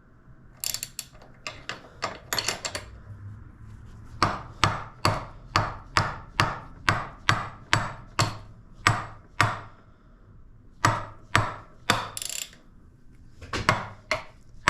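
Ratchet wrench clicking as it is worked on a handlebar mount nut: a few uneven clicks at first, then steady runs of about two or three clicks a second with short breaks. The nut is being turned the wrong way, tightened instead of loosened.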